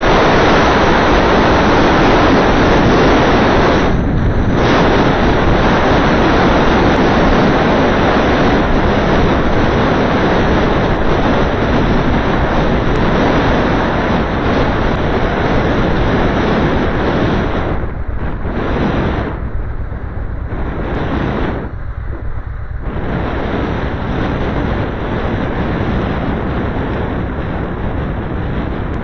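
Loud, steady rush of wind and road noise from a moving car, picked up by the small built-in microphone of camera sunglasses worn by the driver. It eases off briefly a few times, mostly in the middle of the stretch.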